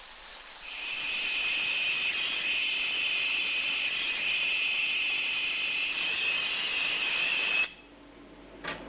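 Gas torch flame hissing steadily while heating the aluminium radiator for brazing. It cuts off suddenly near the end, and a faint click follows.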